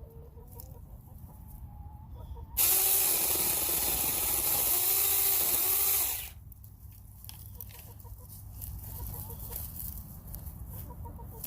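Saker 20-volt battery-powered mini chainsaw running for about three and a half seconds, starting suddenly a couple of seconds in and cutting off abruptly; its motor pitch dips slightly a few times as it bites into thin grapevine twigs.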